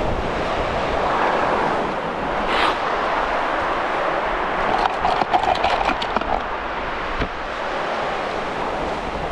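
Surf breaking along the shore, with wind buffeting the microphone, a steady rushing. About five seconds in comes a quick run of small clicks and rattles as tackle is handled in a plastic tackle box.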